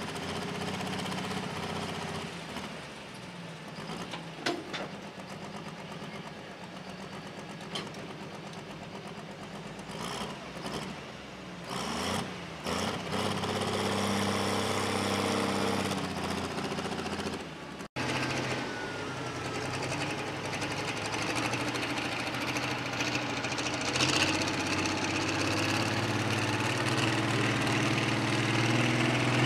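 Turbocharged diesel engines of pro stock pulling tractors running at low throttle at the sled. First is a red International, whose pitch dips and rises about twelve seconds in. After a cut about eighteen seconds in comes a louder John Deere 4455.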